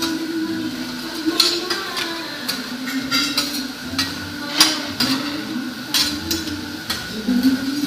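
Metal spatulas clacking and scraping against a steel teppanyaki griddle, with sharp irregular clinks about once or twice a second.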